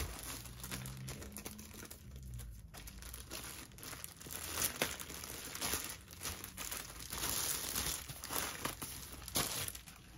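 Clear plastic sleeve and paper wrapping crinkling and rustling as hands slide a rolled diamond-painting canvas out of it, in irregular handling noises that grow louder in the second half.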